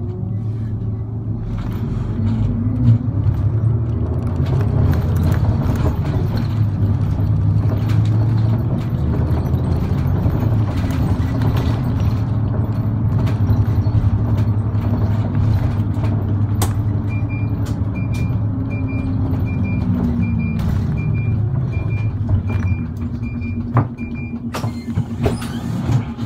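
Route bus engine heard from inside the cabin, rising in pitch as the bus gathers speed, then falling and settling to idle about twenty seconds in. For the last several seconds a high beep repeats a little faster than once a second, and two short hisses come near the end.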